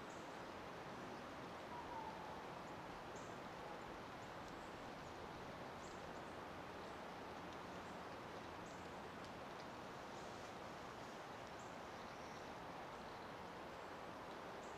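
Faint, steady outdoor background hiss with a few faint, short high chirps scattered through it and a brief faint tone about two seconds in.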